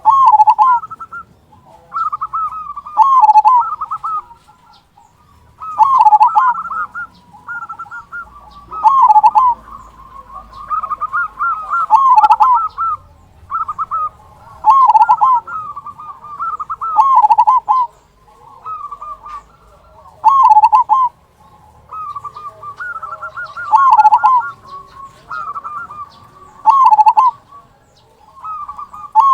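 Local Indonesian zebra dove (perkutut lokal) singing its cooing song: a quick run of short higher notes ending in a louder, deep "kung" note, the phrase repeated about every three seconds.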